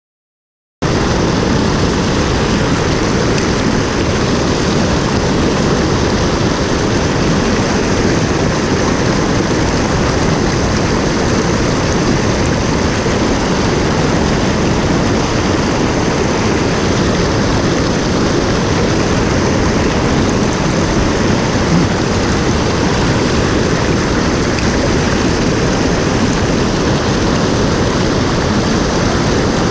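Rushing water of a mountain stream: a loud, steady, even roar that starts abruptly just under a second in.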